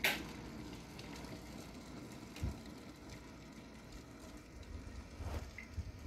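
Electric kettle heating water: a faint, low, steady rumble, with a sharp click at the very start and a soft knock about two and a half seconds in.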